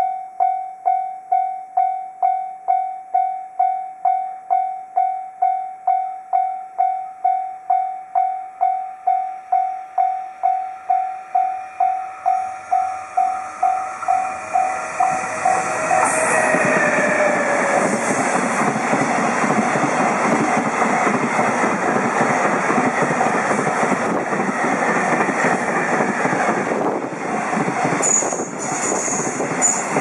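Level-crossing warning bell ringing in a steady electronic ding-ding, about one and a half strokes a second. From about halfway through, an EF210 electric locomotive and its freight train arrive and pass close by: a loud, steady rumble of wheels on rail, with clacks over the rail joints, that drowns out the bell.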